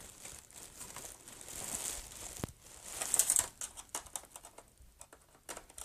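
Plastic scraping and clicking as the Xbox 360's casing clips are pried and unhooked, with a louder run of clicks about three seconds in.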